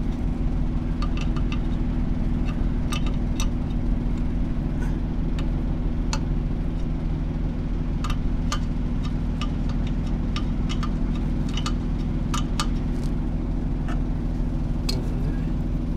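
An engine idling with a steady low hum, with light metallic clicks from wrenches on the air-line fittings scattered throughout.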